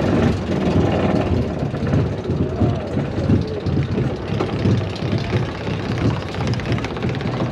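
Steel roller coaster train rumbling over the crest of the lift hill and into the first drop, with wind buffeting the rider's microphone in an irregular, low rush.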